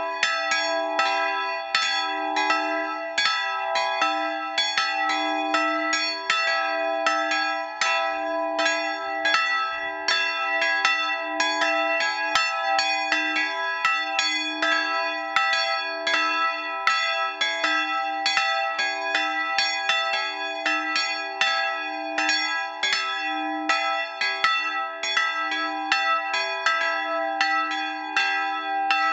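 Two bronze church bells cast in 1913 by Schilling & Söhne of Apolda, tuned to e'' and g-sharp'', swinging and ringing together in an open steel bell frame. Their strokes overlap in a steady, dense run of strikes over a lasting hum.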